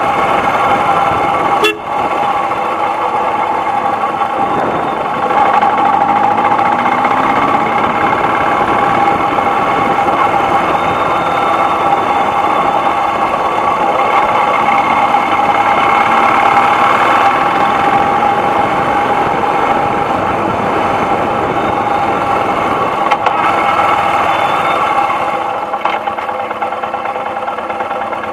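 Royal Enfield Himalayan's single-cylinder engine running steadily at riding speed, heard close up from the crash guard with wind and road noise, dropping in level near the end.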